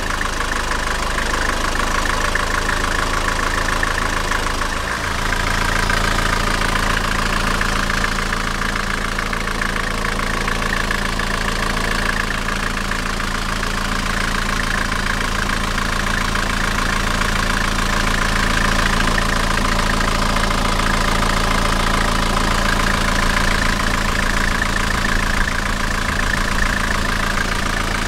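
Nissan TD27 2.7-litre naturally aspirated four-cylinder diesel engine idling steadily, with an even, rapid clatter.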